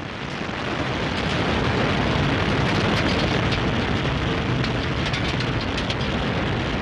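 Antares 230 rocket's first stage, two RD-181 engines, heard during liftoff and early climb: a dense rumble with a crackle on top. It swells over the first second, then holds steady.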